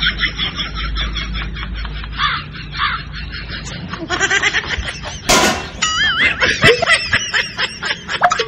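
Steel crockery, a cooking pot and a steel mug, banged together in a rapid metallic clatter, with one loud crash about five seconds in. Snickering laughter runs alongside.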